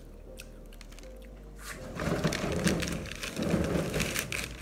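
Paper KFC bag rustling and crinkling as it is handled, in two stretches starting about two seconds in, over a low steady hum.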